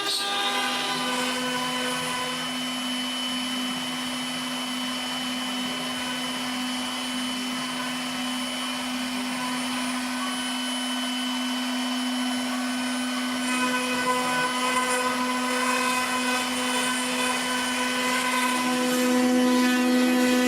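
CNC router spindle running with a steady whine while it cuts rabbets and a raised relief design into a wooden chair part. The cutting gets louder and harsher about two-thirds of the way through.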